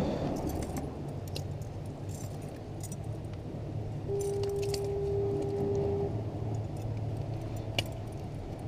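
Light metallic clinks and jingling over a steady low rumble, with one steady horn-like tone held for about two seconds midway.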